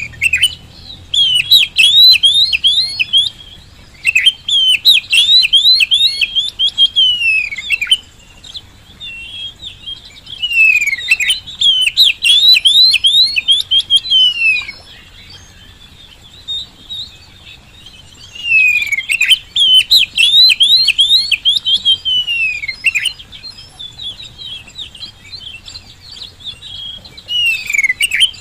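Oriental magpie-robin singing vigorously: loud bursts of rapid, sweeping chirps, each run lasting three to four seconds, broken by short pauses.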